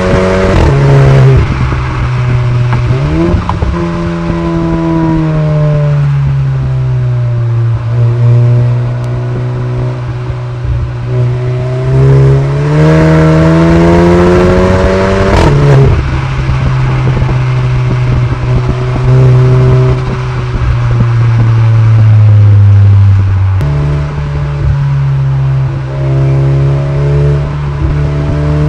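Audi A3 with a sports exhaust, its engine note rising and falling several times as the car accelerates and the revs drop. The loudest surges come just after the start and around the middle, where a long climb in pitch ends in a sudden drop.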